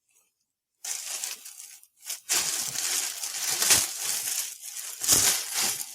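A bag rustling and crinkling as someone rummages through it, searching for something. It starts about a second in, pauses briefly near two seconds, then carries on.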